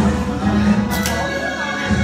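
Loud background music with sustained notes over a steady pulsing bass, and a short hiss about halfway through.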